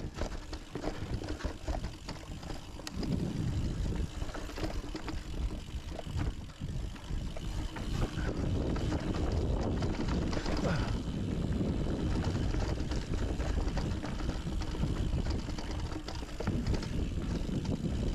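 Mountain bike rolling down a rough dirt trail, its tyres and frame rattling and clattering over rocks and roots, with wind rushing over the microphone. It gets louder about three seconds in.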